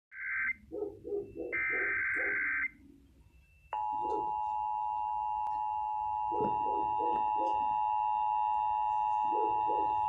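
Reecom weather alert radio's speaker sounding an Emergency Alert System required monthly test. It plays two short bursts of SAME header data as a harsh high buzz, the second about a second long. About 3.7 s in, after a click, the steady attention tone starts and holds.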